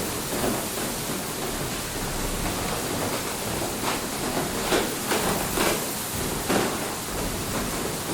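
Water mill: a steady rush of flowing water with irregular louder splashes.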